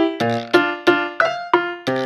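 Background music: a light keyboard melody of short, quickly fading notes, about three a second.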